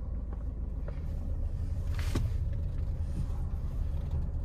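Car engine running at low revs, a steady low rumble, with one short knock about two seconds in.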